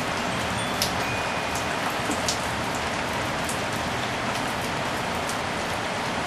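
Steady tropical rain shower: an even hiss with many separate drops striking close by.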